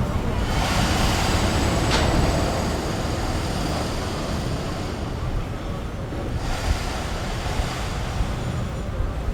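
Hong Kong double-decker tram running, a steady rushing rumble of wheels on the rails mixed with street noise, swelling in the first few seconds and again in the latter part.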